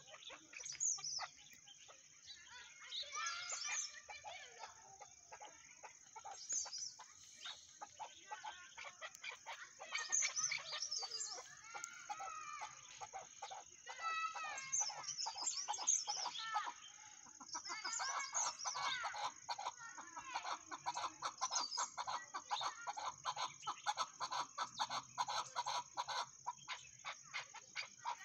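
Chukar partridge calling: bursts of rapid clucking notes, turning in the last third into a fast, even run of repeated clucks.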